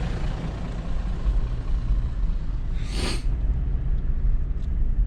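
Steady low rumble of a vehicle driving, heard as it travels, with one short hiss about three seconds in.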